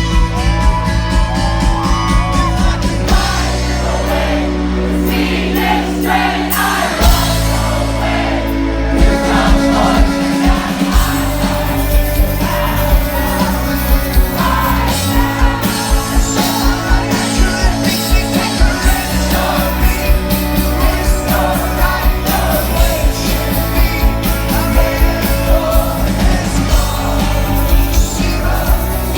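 Live rock band performing: sung lead vocals over guitar and a steady beat, captured in a concert recording. A few seconds in the band thins to a held low chord, then comes back in full about seven seconds in.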